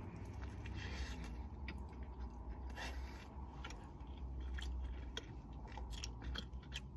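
A person biting into and chewing a crispy fried chicken burger, with many small, irregular crunching clicks over a low steady hum.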